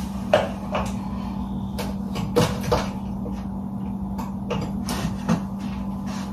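Kitchen handling sounds: scattered light knocks and clicks of cookware and cabinets being handled, over a steady low hum.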